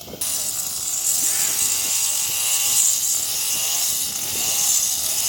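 Stihl chainsaw running, its engine pitch rising and falling over and over, about once a second, over a steady high hiss.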